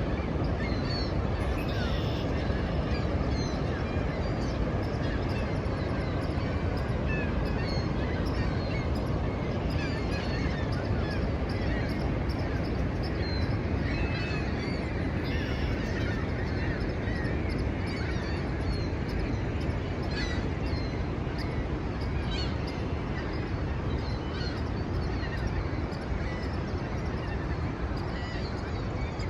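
Niagara Falls' water thundering down in a steady, deep roar, with short bird calls scattered over it throughout.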